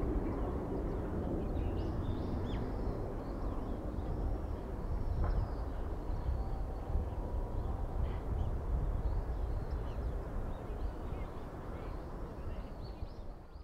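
Distant rumble of a Boeing 777-300's twin jet engines as the airliner climbs away after takeoff, slowly fading. Birds call briefly and repeatedly over it.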